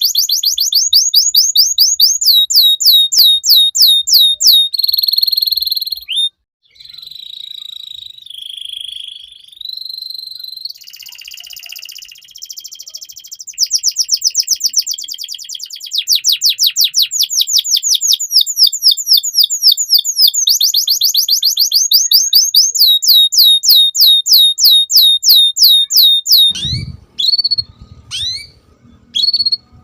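Domestic canary singing a loud song of rapid repeated trills at changing speeds, with a few slower, lower phrases partway through. Near the end it changes to sparse separate chirps over a low hum.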